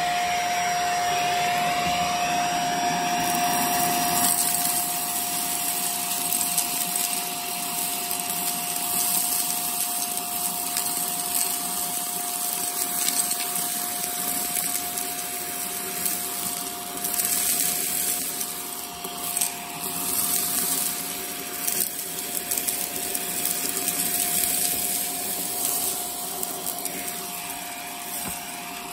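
Shark vacuum cleaner running with its upholstery tool, a steady motor whine over rushing suction. Small debris (glitter, sequins, beads) rattles and clicks up the nozzle throughout.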